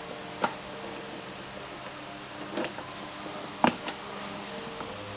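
A few sharp clicks or knocks, the loudest about three and a half seconds in, over a faint steady background with a few held tones.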